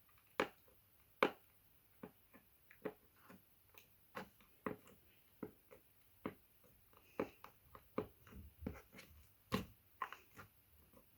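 Thick, jiggly slime being squeezed and poked close to a microphone, making short irregular clicks and pops, one or two a second.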